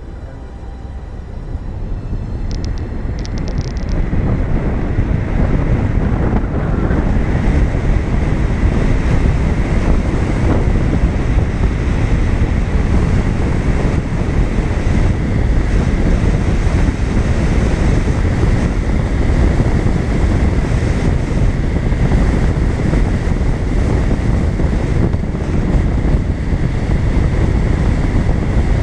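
Wind rushing over the microphone together with the rumble of a moving vehicle on the road, building over the first several seconds as it picks up speed and then holding steady. A faint, steady high whine runs underneath.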